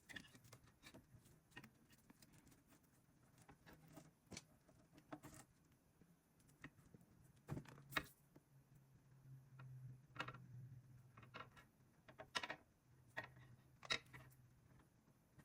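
Faint scattered clicks and taps of small craft materials being handled, with a few sharper ones about halfway through and near the end, over a low steady hum.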